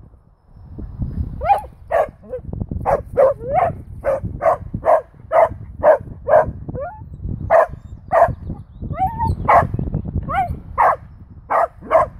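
A dachshund barking over and over, short sharp yaps about two a second after a quiet first second, with a brief pause about two-thirds of the way through; the dog is barking at a wild boar behind a wire fence.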